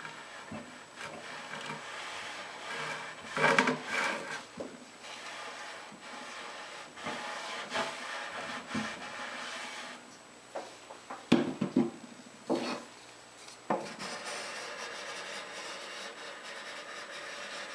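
A chunk of 2x4 rubbed firmly back and forth along freshly ironed edge banding on a plywood edge, pressing out air pockets, with a few sharp wooden knocks.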